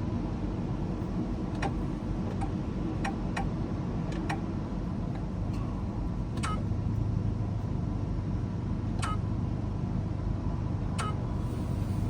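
Key-cutting machine at work cutting a key: a steady low hum with about eight sharp, separate clicks scattered through it.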